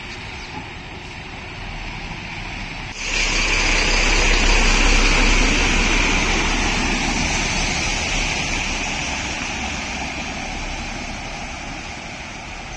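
Heavy tipper lorry driving through flood water close by, its tyres hissing and splashing through the water over the low rumble of its engine. The sound comes in abruptly about three seconds in, is loudest a second or three later, and fades slowly as the truck goes past.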